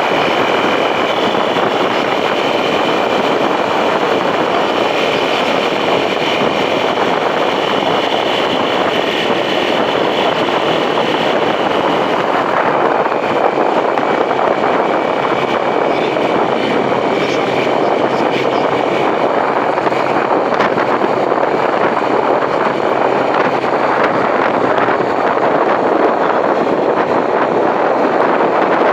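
Heavy wind noise on the microphone of a riding motorcycle: a steady rushing that covers most other sound, with a faint steady tone from the bike in the first half.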